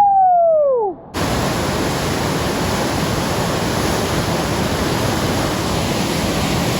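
A brief falling voice-like cry, then about a second in a loud, steady rush of river whitewater starts abruptly and holds without change.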